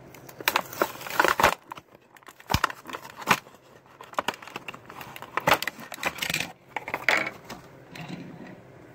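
Stiff plastic blister pack of a toy diecast car being handled and cut open: irregular crackling, crinkling and sharp clicks of the plastic and card.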